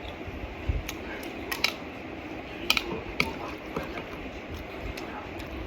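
Close-up eating sounds of a bowl of Penang laksa: chewing and slurping soupy noodles, with a few short sharp clicks in the first half.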